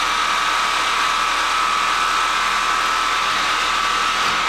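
Reciprocating saw running steadily, its blade cutting a vinyl-coated 1/8-inch steel wire rope clamped in a vise, with a steady whine over the buzz of the stroke.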